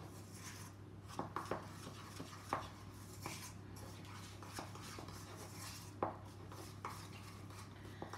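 A spoon stirring and scraping thick icing sugar and water in a small bowl, with scattered clicks of the spoon against the bowl, as stiff icing is mixed. A faint steady low hum runs underneath.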